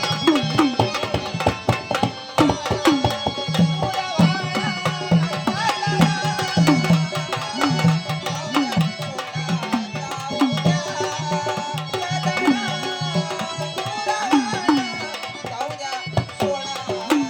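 Instrumental interlude of Marathi folk gondhal music: a tabla-type hand drum plays a steady rhythm with sliding bass strokes, over a wavering melody line and sharp percussive clicks.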